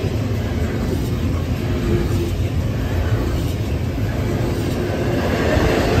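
Freight train cars rolling past close by at speed: a steady, loud low rumble of steel wheels on rail, with faint brief squealing tones about two and five seconds in.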